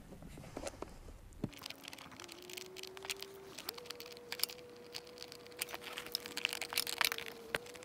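Scattered small clicks and taps of hand tools working the nuts and wires off an ATV's starter relay terminals. From about a second and a half in, a fly's steady buzz rises in pitch twice.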